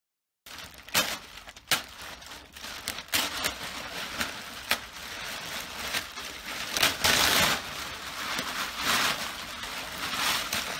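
Silver foil shrink-wrap on a machine being torn and crumpled by hand: irregular sharp crackles, growing into louder bursts of rustling from about halfway on.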